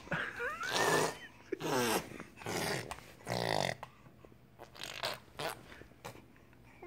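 A baby's vocal noises: short pitched bursts in the first four seconds, one with a high squeal that glides up and down, then only a few faint sounds.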